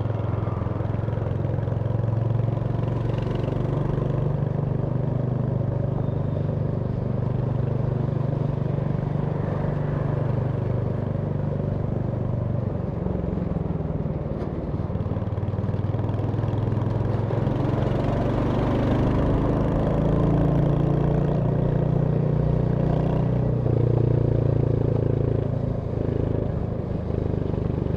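Royal Enfield Hunter 350's single-cylinder engine running steadily while riding, its note shifting in pitch a few times as the throttle and speed change.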